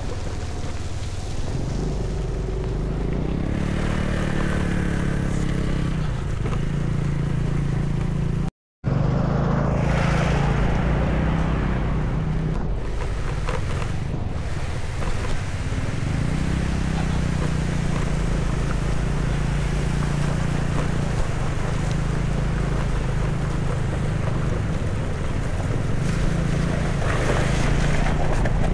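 Motorcycle engine running as the bike is ridden, its revs rising and falling, with wind buffeting the microphone. The sound cuts out for a moment about nine seconds in.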